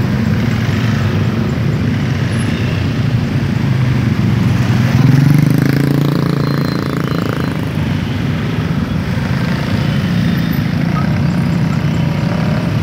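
Many small motor scooters running together in slow, dense traffic: a steady engine drone that swells to its loudest about five seconds in.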